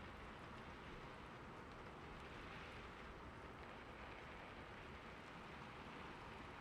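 Steady rain falling: a soft, even hiss with faint ticks of individual drops, unchanging throughout.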